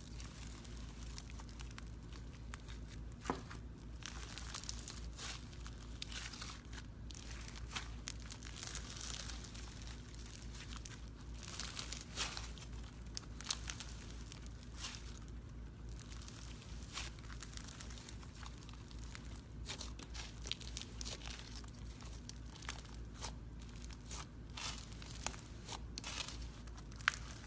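Slime being squeezed and worked by hand, giving an irregular stream of small crackles and pops, over a steady low hum.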